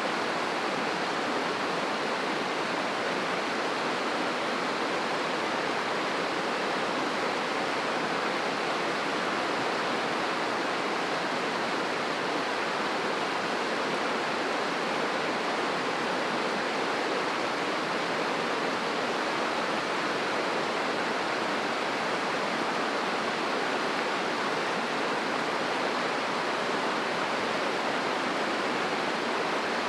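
River rushing: a steady, unbroken roar of fast-flowing water.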